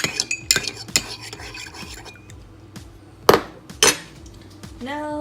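A utensil stirring dish soap into a cup of water, clinking repeatedly against the cup, then two sharp knocks a little past three seconds in.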